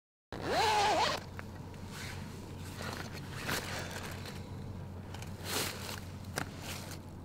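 Zipper of a body bag being pulled open: one long, loud zip with a wavering pitch about half a second in, followed by several shorter scraping pulls and rustles over a steady low hum.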